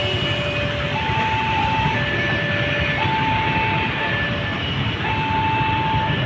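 Warning signal of an Indonesian railway level crossing, an electronic two-tone alarm alternating a high and a low tone about a second each, over a loud low rumble.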